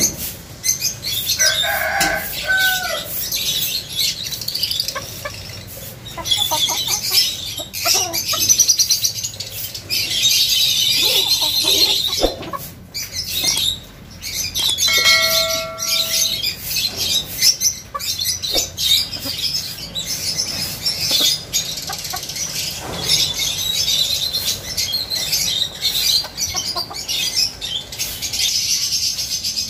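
Chickens clucking and calling now and then: a short call about two seconds in and a brief held note around the middle. Behind them runs a continuous high chatter of many small birds chirping.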